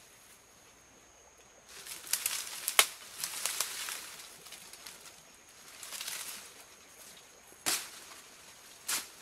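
Footsteps and rustling of tall grass and dry leaves as a person pushes through dense undergrowth, in irregular bursts, with a sharp crack about three seconds in and another near the end.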